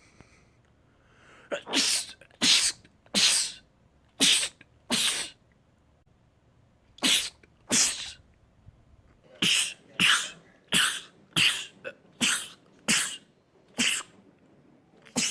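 A man sneezing over and over in rapid fits: about fifteen sharp sneezes, most coming a half-second or so apart in bunches, with short pauses between the bunches.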